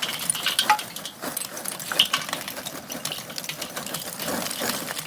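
Charcoal poured from a bag into a Weber charcoal grill: a dense, continuous clatter of lumps tumbling onto one another and the grill, with a few louder knocks.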